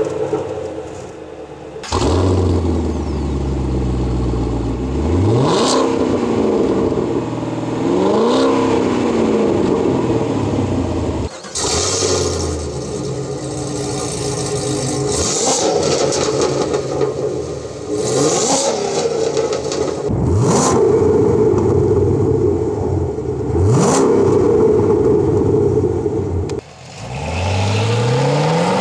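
A Chevrolet Camaro SS's V8 exhaust, heard from behind the car, idling and being free-revved again and again, its pitch sweeping up and falling back each time. It comes as a string of short clips with abrupt cuts, comparing the stock exhaust with Stainless Works headers and exhaust.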